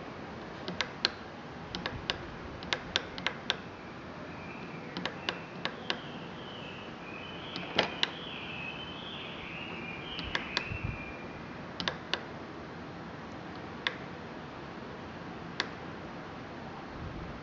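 Sharp clicks at irregular intervals, often in quick pairs, from a CE030 delay relay module being set by hand with its push buttons. The loudest pair comes about eight seconds in.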